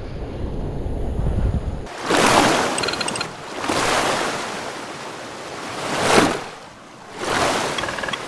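Sea surf washing in, rising and falling in repeated swells about every two seconds. A low rumble cuts off suddenly about two seconds in.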